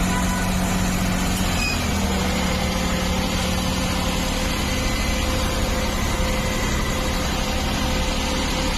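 Car engine idling steadily on CNG while the air conditioning is switched back on. About two seconds in, the engine note shifts slightly and a new steady tone joins it as the AC load comes on, and the engine keeps running without stalling.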